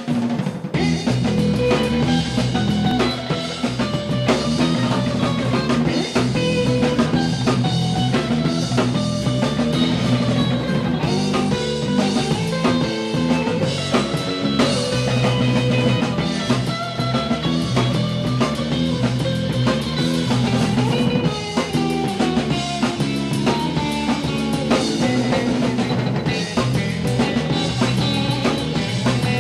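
Surf rock band playing: electric guitar melody lines over a steady drum kit beat and bass.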